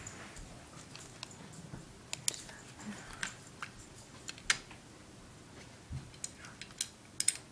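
Scattered light, sharp clicks and taps of a small black plastic makeup case being handled in the hands, with a quick cluster of clicks near the end.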